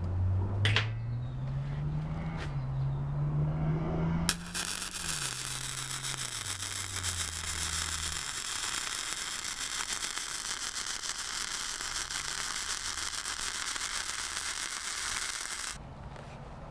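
Flux-core wire-feed welding arc from a Blue Demon 140MSI welder laying a vertical-uphill bead on quarter-inch steel plate: a dense, steady crackling sizzle that starts suddenly about four seconds in and cuts off abruptly near the end. Before the arc strikes there are a couple of clicks and a low wavering hum.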